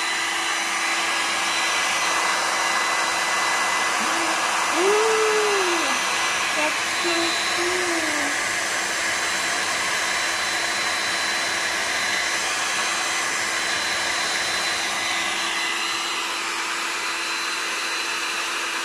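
Ottimo hand-held hair dryer running steadily with an even rush of air and a constant whine, blowing hot air over swatches of heat-sensitive paint.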